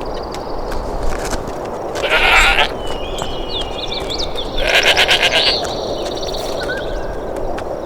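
An animal calls twice, each call under a second long and about two and a half seconds apart, with small bird chirps between them, over a steady hiss of wild ambience.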